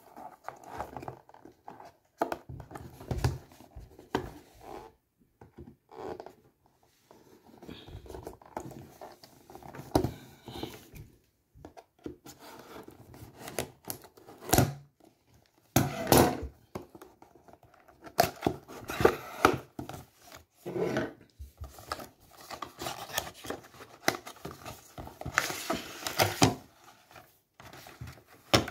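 Scissors cutting and scraping at a cardboard earbud box while hands rub and handle the packaging: irregular snips, scrapes and rustles with short pauses between them.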